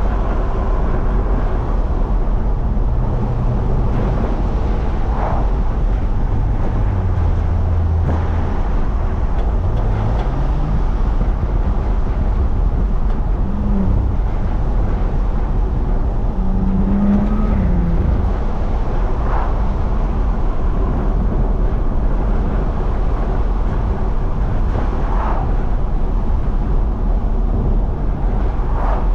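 BMW F30 335i's turbocharged inline-six with a catless downpipe, driving steadily with road noise: a continuous low drone whose pitch rises and dips a little a few times in the first two-thirds.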